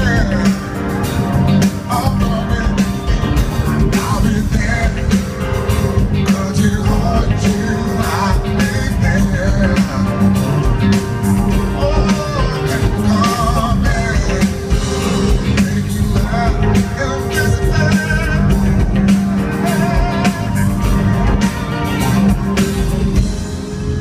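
Live band playing a soul groove with bass, drums and electric guitar, a man singing over it into a microphone through the concert PA.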